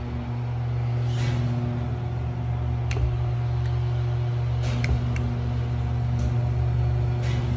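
Steady machine hum from processing equipment. A few sharp clicks about three seconds in and again around five seconds in, from the toggle switches on an AC motor speed control being flipped.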